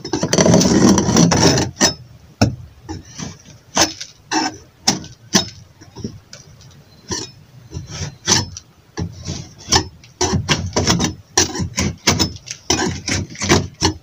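Scraping and picking at a termite-infested wooden wall board with a small metal tool. A rough scrape runs through the first couple of seconds, then comes an irregular run of sharp wooden clicks and knocks.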